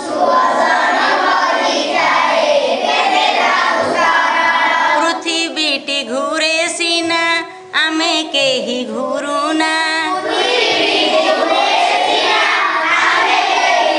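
A group of schoolchildren singing an old Odia song together in chorus, with a brief break a little past halfway.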